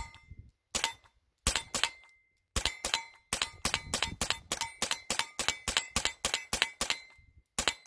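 Ruger 10/22 semi-automatic .22 rifle fired in rapid strings of sharp cracks, about three to four a second, with a few short pauses. Some shots are followed by a brief metallic ring.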